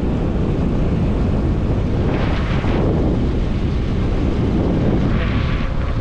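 Steady, heavy wind buffeting on the microphone over a running vehicle, the rush of travelling along a road.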